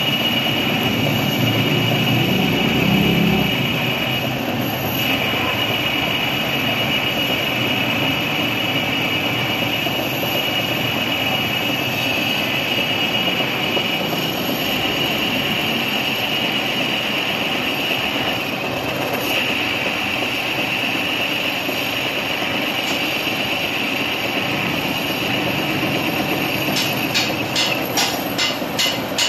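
Metal lathe running steadily as a carbide insert cuts a spinning steel part, the motor and cut making a constant drone with a steady high-pitched whine. A quick series of ticks sets in near the end.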